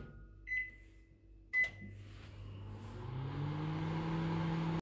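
Panasonic microwave oven: two short keypad beeps, about half a second and a second and a half in, then the oven starts running with a hum that rises in pitch and level as it gets going, reheating a mug of coffee.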